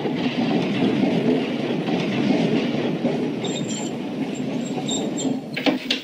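Tram (streetcar) running along rails, a steady clattering rumble of steel wheels on track. A high wheel squeal sounds on and off from about three and a half to five seconds in.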